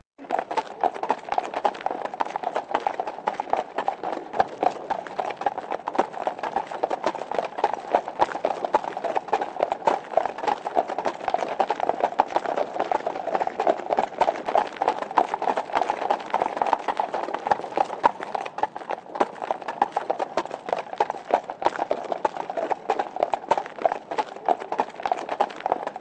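A group of horses at a slow ride, their hoofbeats overlapping into a dense, continuous clip-clop.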